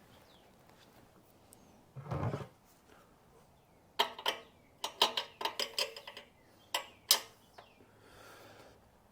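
Metal hand tools clicking and clinking while undoing parts on a motorcycle: a dull thump about two seconds in, then a run of sharp, irregular clicks.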